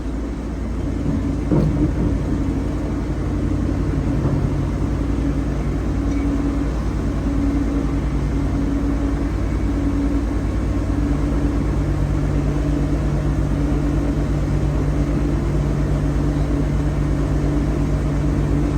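Wood-Mizer LT40 portable band sawmill running steadily, its engine holding a constant speed.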